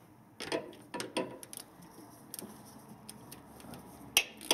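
A hand ratchet clicking a few scattered times while snugging the drain plug in an oil filter housing cap, with one sharper click about four seconds in.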